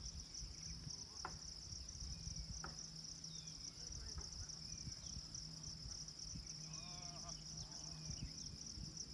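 A steady, high-pitched insect drone, with a few short bird chirps scattered through it.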